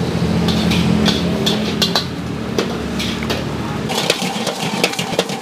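Metal spatula clanking and scraping against a steel wok as fried rice is stir-fried over a gas burner, in irregular sharp strikes a few times a second. A steady low engine-like hum runs under the first four seconds and then fades.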